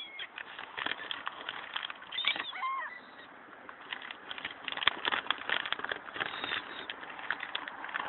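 A flock of gulls gives a few short, gliding cries, over a busy patter of many short clicks as the birds crowd and take off around scattered food.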